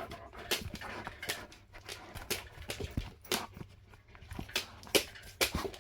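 A dog in a small room, with irregular sharp clicks and taps several times a second.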